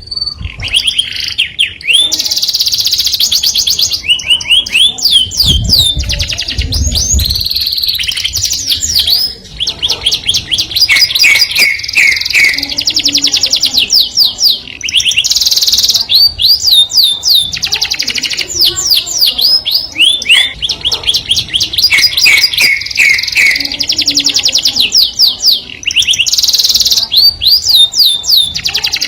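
A canary singing a long, loud song of fast trills, repeated sweeping notes and rolls in phrases with short breaks. A brief low rumble comes about six seconds in.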